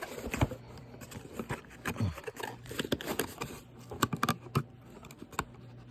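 A package being handled and pried at by hand, with irregular clicks, taps and scratches as it resists opening; a denser cluster of sharper clicks comes a little past the middle.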